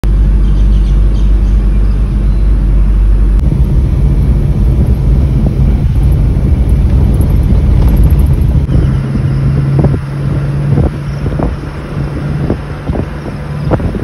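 Car driving, heard from inside the cabin: a steady low engine and road rumble that changes abruptly twice. From about ten seconds in, a run of short knocks or clicks sounds over it.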